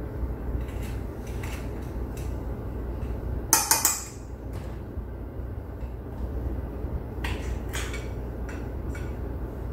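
Knife tip clicking and scraping against a small plate while seeds are scraped from a vanilla bean, with one louder clatter about three and a half seconds in. A steady low hum runs underneath, as from a stand mixer.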